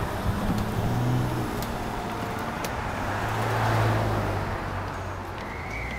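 Footfalls of people climbing wooden outdoor stairs, sharp light knocks about once a second, over a steady low rumble of background noise.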